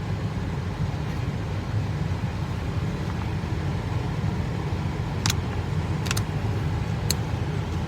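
Steady low rumble of a running vehicle, with a few short clicks in the second half.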